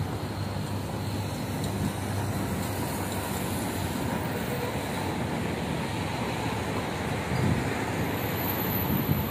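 Steady city road traffic noise, an even low rumble.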